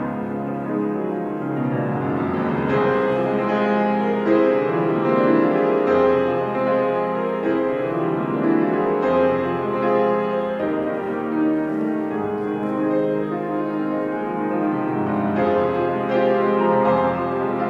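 Grand piano playing a slow passage of sustained chords.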